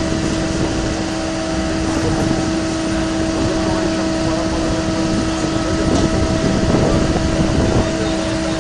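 Boat travel lift running, a steady mechanical hum with a constant whine over a low rumble, growing a little louder about six seconds in.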